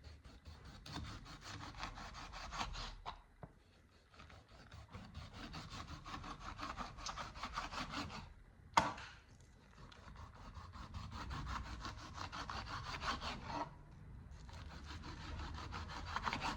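Kitchen knife sawing through a lemon to cut it into slices, in stretches of quick back-and-forth strokes with short pauses, and one sharp knock about nine seconds in.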